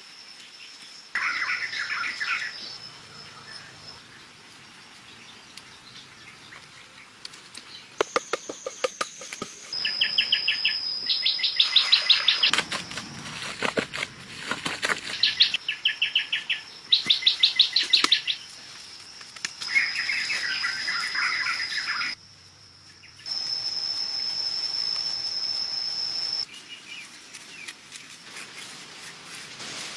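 Forest insect and bird chorus: a steady high-pitched insect drone with repeated bursts of rapid chirping pulses. The sounds cut in and out abruptly several times.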